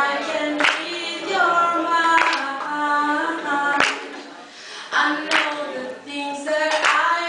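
A woman singing a cappella into a microphone, holding long notes, with no accompaniment. Sharp percussive accents fall about every second and a half.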